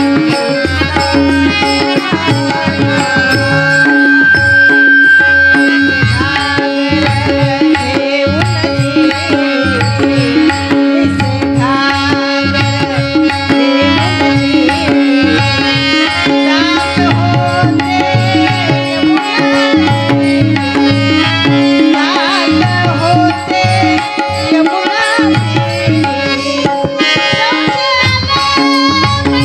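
Instrumental interlude of a Marathi gavlan devotional song: a melody instrument plays over a steady drone, with a hand-drum rhythm.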